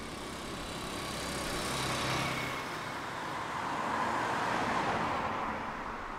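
A motor scooter rides past with its small engine running, loudest about two seconds in. A car then passes close by, its tyre noise on the road swelling and fading around four to five seconds in.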